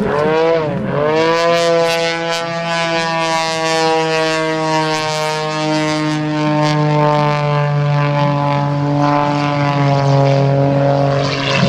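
Modified Pitts Special aerobatic biplane's piston engine and propeller running at high power during aerobatics. The engine note wobbles rapidly up and down for about the first second, then holds a steady drone that dips slightly partway through and grows rougher near the end.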